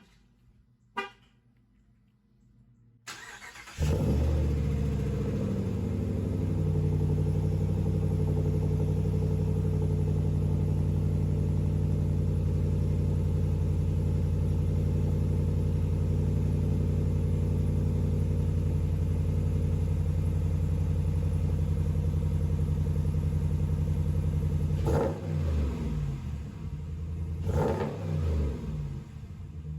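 2019 Ram Rebel pickup's engine started through a B2 Fabrication Moderate Muffler exhaust with the resonators deleted: two clicks, a brief crank, then it catches about four seconds in and idles steadily. Near the end it is revved twice, briefly.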